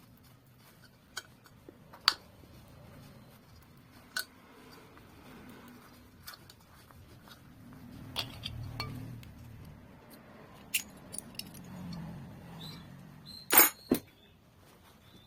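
Scattered sharp metallic clicks and clinks of a bearing puller and tools working on a ceiling fan's bearing, ending with two loud metal knocks close together near the end.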